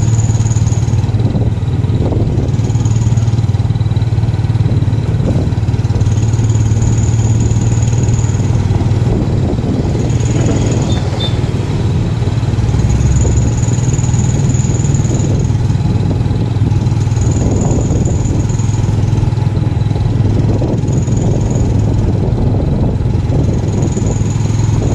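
Motorcycle engine of a motorized tricycle running steadily while under way, heard from inside the open sidecar as a constant low drone.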